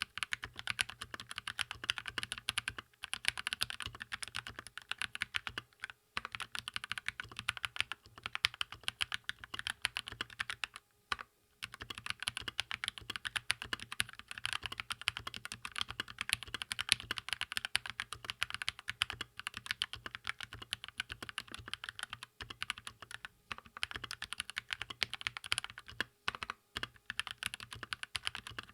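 Keychron K2 mechanical keyboard with red linear switches being typed on quickly and continuously: a dense stream of key clacks, broken by a few brief pauses, the longest about eleven seconds in.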